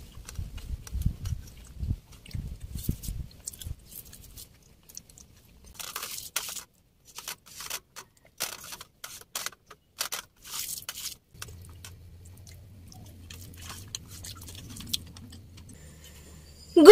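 A person eating rice by hand from a steel plate: soft chewing, then a run of quick light clicks and scrapes as fingers mix rice against the metal plate. A faint low steady hum comes in over the last few seconds.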